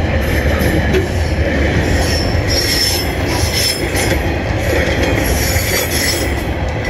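Coal hopper wagons of a freight train rolling past close by: a steady rumble of wheels on rail, with a thin high squeal from the wheels from about two and a half to four seconds in.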